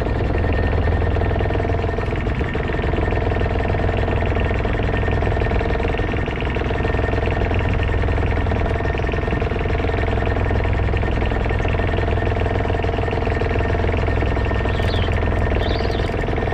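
Fishing boat's engine running steadily: a continuous low drone with a steady hum over it.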